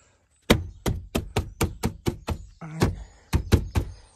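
A rapid series of sharp knocks on a Toyota Tacoma truck door, about four a second, in two runs with a short pause between.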